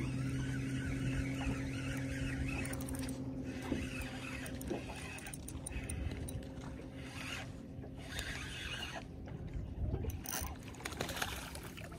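Daiwa spinning reel being cranked to retrieve a lure. A steady low hum runs underneath and stops about four seconds in.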